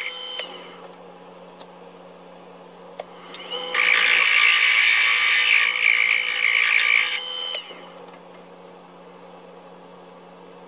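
A wood lathe runs with a steady motor hum. From about four seconds in, and for roughly three and a half seconds, there is a loud hissing rasp as sandpaper is pressed against the spinning wooden stem.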